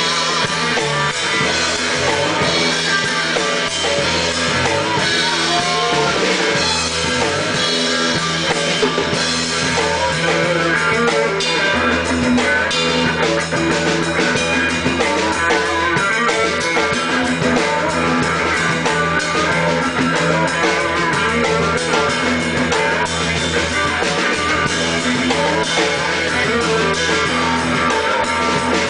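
Live rock music from a small band: guitar played over a drum kit, continuous and loud.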